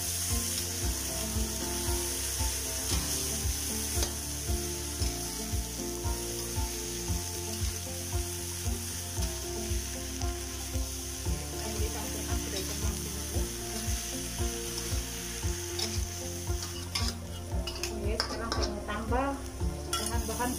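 Sliced banana blossom and salted fish stir-frying in a hot oiled wok: a steady sizzle, with a metal spatula scraping and knocking against the wok about twice a second. The sizzle thins out near the end while the stirring goes on.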